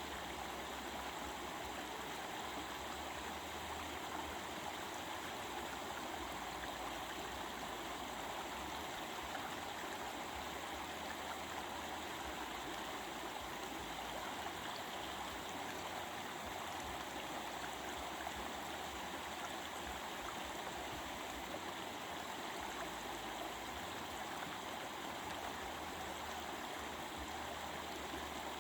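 Stream water running over rocks: a steady, even babbling rush with no pauses.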